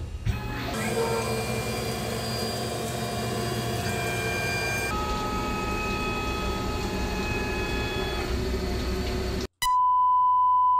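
CNC lathe running with coolant spraying, the spindle and machine giving several steady whining tones that shift pitch a few times. About nine and a half seconds in, this cuts out and is replaced by a steady 1 kHz test tone.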